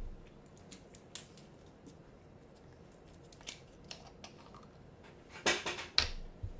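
Faint, scattered small clicks and rustles of hands handling something close to the microphone, with a louder rustle about five and a half seconds in.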